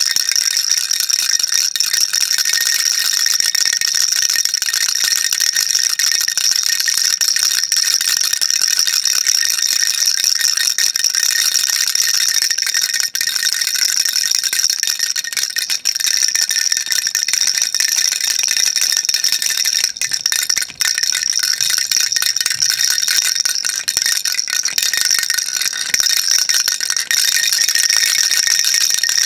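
Baby rattle shaken continuously: a dense, high-pitched rattling of beads inside the toy, with a few brief dips in the shaking.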